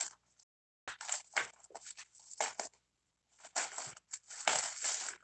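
Plastic bubble wrap being cut open with scissors and handled, giving a run of irregular crinkles and crackles, with a longer, denser rustle over the last second and a half.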